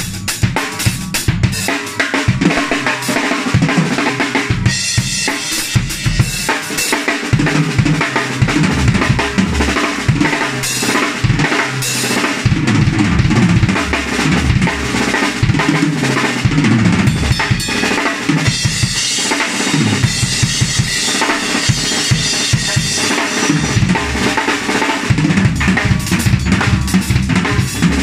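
DW acoustic drum kit played without a break: quick bass drum, snare and tom strokes with cymbals crashing over them.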